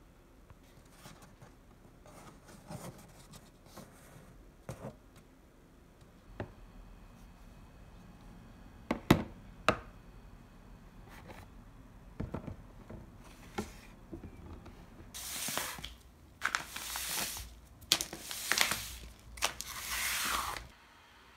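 Plastic cat litter box and scoop being handled, with scattered clicks and a few sharp knocks. Then a plastic bag of cat litter is pushed along the floor by foot in several rustling, scraping slides, each a second or two long.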